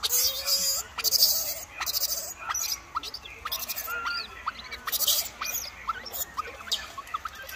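Young macaques squeaking: a run of short, high chirping squeaks, two or three a second, mixed with bursts of rustling during the first five seconds or so.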